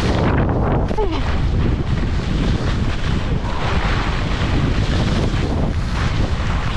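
Wind buffeting the microphone, a loud, steady rushing noise.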